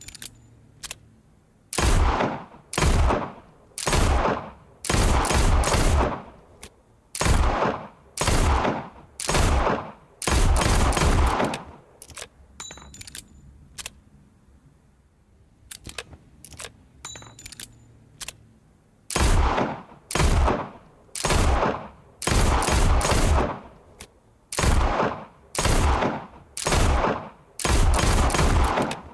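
Revolver gunshots fired one after another, about one a second, some in quick doublets, each with an echoing tail. They come in two runs with a pause of several seconds between them, in which only faint clicks are heard.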